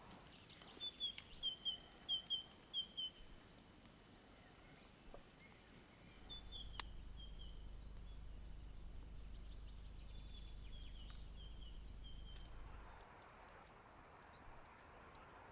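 A songbird singing three short phrases of quick, high, repeated chirped notes, with a low steady rumble in the background through the middle.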